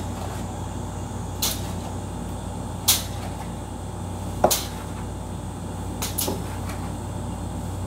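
About five short, hard clicks and knocks, a second or more apart, of eggs and plastic egg trays being handled while eggs are loaded into an egg incubator, over a steady low hum.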